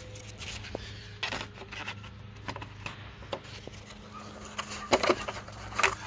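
Handling noise from plastic car mirror parts: scattered small clicks, taps and scrapes as a trim piece is worked into the door mirror, with two louder knocks near the end.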